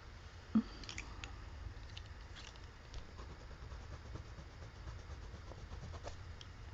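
Faint scratching and light ticks of a colored pencil working on paper, over a low steady hum, with one soft knock about half a second in.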